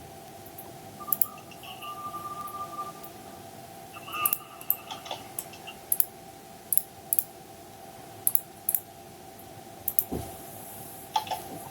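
Irregular sharp clicks, about a dozen, spaced unevenly, over a steady hum. There are a few short high beeping tones, one held for about two seconds near the start and another about four seconds in.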